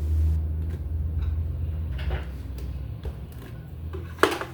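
Steady low hum with a few light knocks, and one sharp click about four seconds in.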